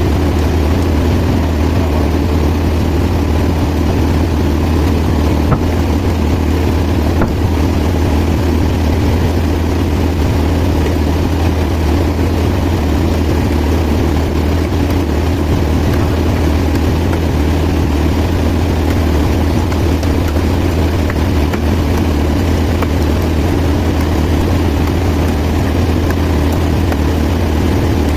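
Band sawmill machinery running steadily, a loud, even low drone.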